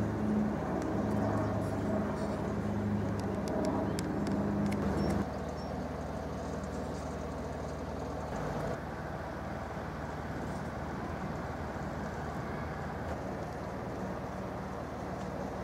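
Steady low engine hum with a few light clicks in the first few seconds; the hum becomes quieter suddenly about five seconds in.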